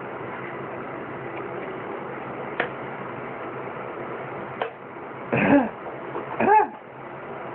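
A man burping twice, two short loud burps about a second apart near the end, over a steady hiss.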